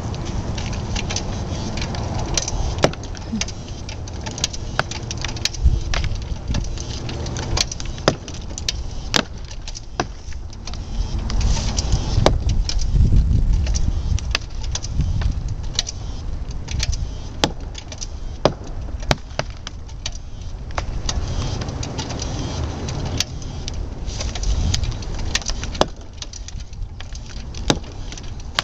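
Ratcheting tree jack being pumped by hand at the base of a dead cottonwood, giving sharp metallic clicks at an uneven pace of about one or two a second as the jack lifts the tree. A low rumble runs underneath and swells about twelve seconds in.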